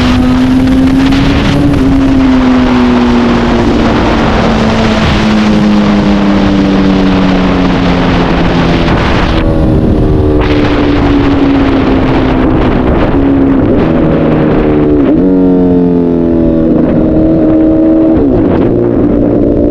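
Honda CBR1000RR inline-four engine with a straight-through exhaust, heard from the moving bike over wind noise. The engine note sinks slowly over the first half, then dips sharply and climbs again a few times in the last third.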